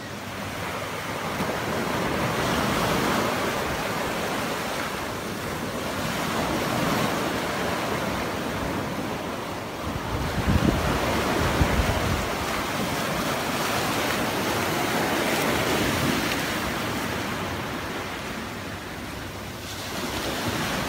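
Sea surf washing onto the beach in slow swells, with wind buffeting the microphone in low rumbling gusts about halfway through.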